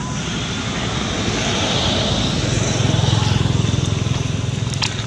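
Engine noise from something passing by: a low rumble with a hiss over it that swells to its loudest about three seconds in, then eases. A couple of light clicks come near the end.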